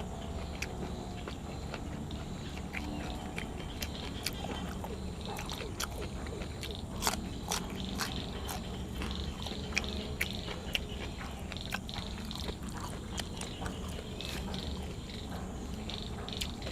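Close-up eating sounds: someone biting and chewing food, with many short crisp clicks and crunches at an irregular pace over a steady low background hum.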